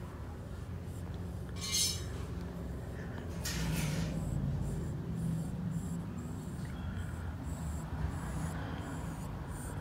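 A steady low rumble of background noise, with one short metallic clink about two seconds in, typical of a dog's metal collar tag striking its buckle, and a brief rustle a couple of seconds later.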